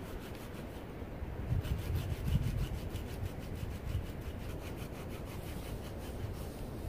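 Hand saw cutting through the trunk of a dead tree in rapid, regular strokes, starting about a second and a half in and stopping shortly before the end.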